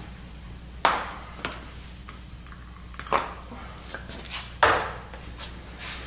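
A wheel-bearing grease packer pressed down underfoot on a concrete floor, packing grease into the bearing: three sharp clacks, about a second in, at three seconds and near five seconds, with lighter ticks between over a low steady hum.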